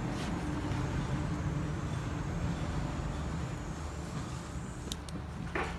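Steady low hum of an engine running, with a short rising squeal near the end.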